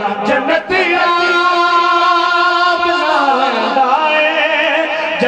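A Punjabi Sufi devotional song, the singer holding one long drawn-out note over musical accompaniment, the pitch sliding down about three seconds in.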